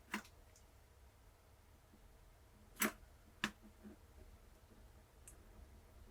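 Three short, faint clicks from small hard objects being handled during a phone repair, about a tenth of a second in, near three seconds in and half a second later, over quiet room tone.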